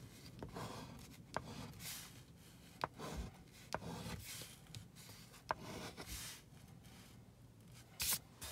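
A large metal coin scratching the latex coating off a scratch-off lottery ticket, in quiet, short, irregular rasping strokes, with a few light clicks of the coin against the card.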